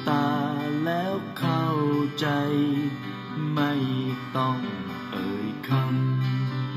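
Music playing from a CD on a Victor UX-Z11MD micro component system, heard through its small speakers: a melody with sliding notes over a steady bass.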